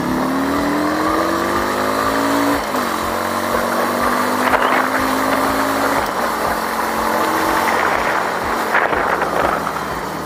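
Fuel-injected Nevada 250 chopper motorcycle engine pulling under way. It rises in pitch as it accelerates, drops suddenly at a gear change about two and a half seconds in, then runs at a steadier pitch over a rushing hiss.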